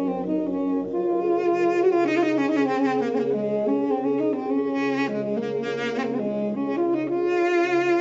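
Armenian duduk playing a slow melody of held, gliding notes with a wavering vibrato, over a steady low drone.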